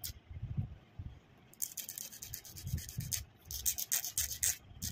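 A nail file scraping across the edge of a glued-on plastic nail tip in quick back-and-forth strokes as the tip is shaped. The strokes are sparse and soft at first and pick up to about four a second after a second and a half.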